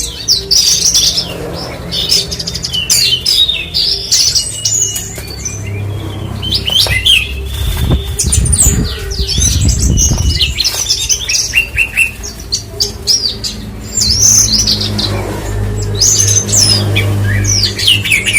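Javan bush lark (branjangan) singing a fast, varied song of chirps, trills and sliding whistles, over a steady low hum.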